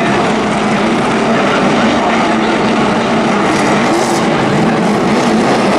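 NASCAR Camping World Truck Series V8 race engines running on pit road under caution, making a loud, steady engine drone.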